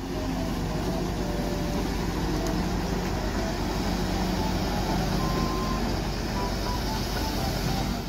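Hyundai HW160 wheeled excavator's diesel engine running steadily while it digs and loads soil.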